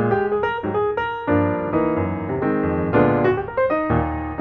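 Background instrumental piano music: a steady run of single notes over chords.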